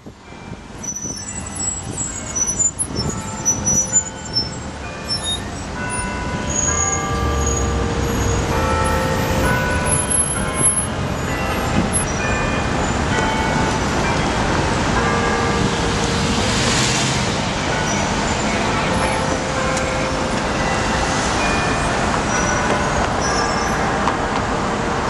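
Busy city street traffic: a steady rumble of passing vehicles with short horn toots scattered through it, swelling up over the first few seconds and then holding steady.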